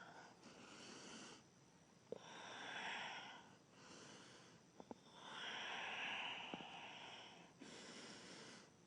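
Slow, deep breathing close to the microphone, long breaths in and out one after another, with a few faint taps in between.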